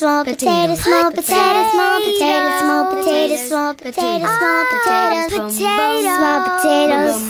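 Childlike voices singing a children's song, holding and gliding between notes.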